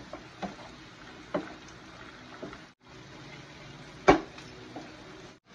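Chicken chop suey simmering and sizzling in its thickened sauce in a nonstick pan while a wooden spatula stirs it, with soft scrapes and clicks. About four seconds in there is one sharp knock, the loudest sound.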